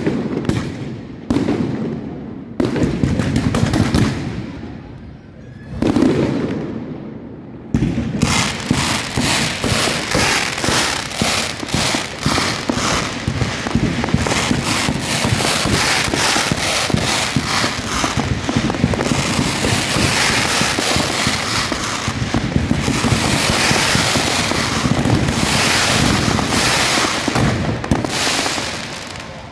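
Fireworks: a few separate loud bursts over the first several seconds, then from about eight seconds in a dense, continuous barrage of rapid reports that eases off near the end.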